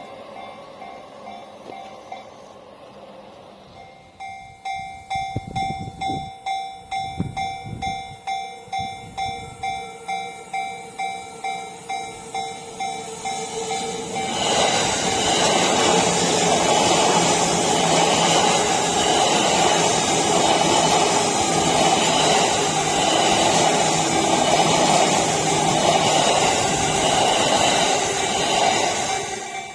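Japanese railway level-crossing alarm ringing its bell-like tone at about two strokes a second. About fourteen seconds in, a Yamanote Line commuter train passes through the crossing with loud, steady wheel and rail noise that drowns the alarm until near the end.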